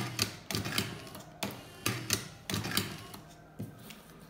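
Motor-driven cigarette injector (Prof Matic T3, a Top-O-Matic lever machine fitted with an electric motor) running a filling cycle: short motor whirs with a string of sharp mechanical clacks, stopping a little before the end.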